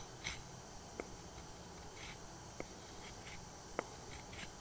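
Freshly sharpened carving axe paring thin cuts off a wooden block to test the edge: faint scraping with a few small sharp ticks, the loudest near the end.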